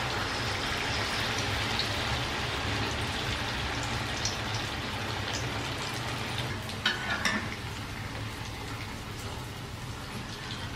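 Corn fritter batter deep-frying in hot oil in a wok, a steady, dense sizzle like rain on a surface. A few brief knocks come near the middle, the loudest about seven seconds in, as a utensil moves in the pan.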